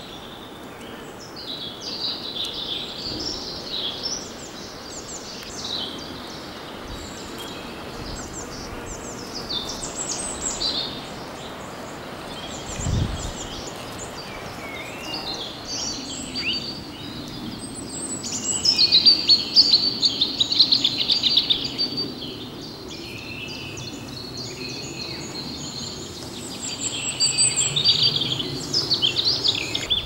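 Songbirds singing in quick, twittering, chirpy phrases over a steady outdoor background hiss. The singing is busiest about two-thirds of the way through and again near the end.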